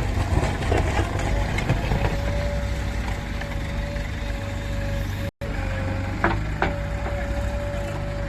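A JCB 3DX backhoe loader's diesel engine runs steadily under a constant whine, with a few sharp knocks. The sound drops out completely for an instant about midway.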